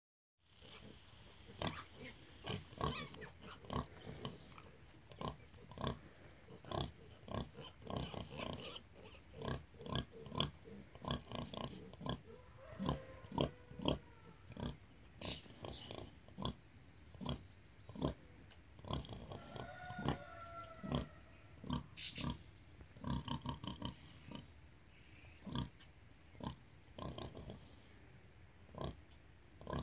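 Hereford sow grunting over and over to her suckling piglets, the rhythmic nursing grunts a sow makes at feeding time, about one or two a second. A few brief higher squeals come in about halfway through.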